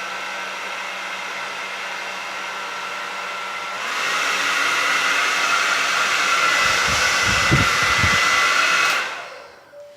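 VITEK VT-2249 hand-held hair dryer running, a steady whir of fan and rushing air that steps up louder about four seconds in. Low buffeting of the air stream is heard around the middle. The dryer is switched off about a second before the end and winds down quickly.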